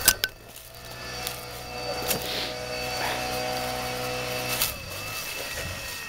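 STIHL BR 600 backpack blower's engine running at a steady speed, fading briefly about five seconds in. A sharp knock sounds right at the start, with a few light clicks along the way.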